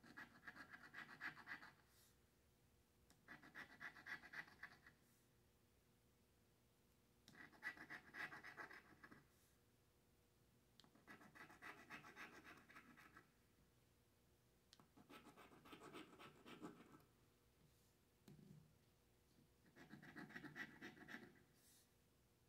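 Scratch-off lottery ticket being scratched, its coating rubbed off the play spots. There are about six short spells of faint, rapid scraping, with pauses of a second or two between them.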